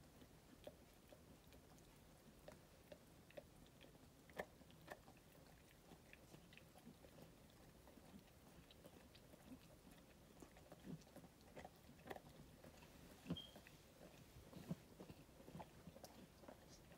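Faint, irregular wet clicks and smacks of a Standard Poodle in labor licking and nosing with her head down in her bedding, a few louder clicks standing out.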